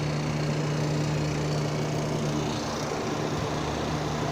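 HVAC machinery running with a steady, unbroken low hum during refrigerant charging of a package unit.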